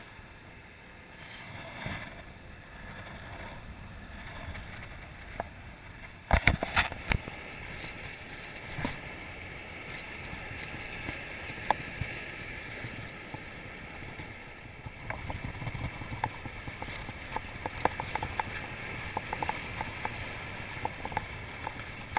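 Surf breaking and washing over jetty rocks, a steady rush of water. A few loud knocks come about six seconds in, and quick light clicks run through the second half.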